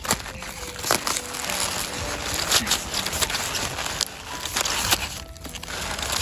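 A knife cutting through a cabbage's stem and crisp leaves, a continuous crunching broken by several sharp snaps.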